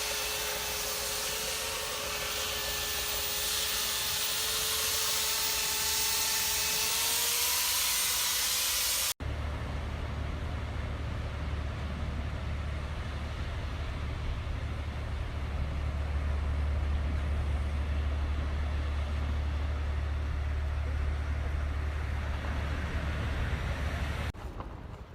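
Electric hand planer running on wood: a steady whine over a high hiss, the whine rising slightly near the end. About nine seconds in, this cuts abruptly to a steady low rumble with a noisy hiss that fades out near the end.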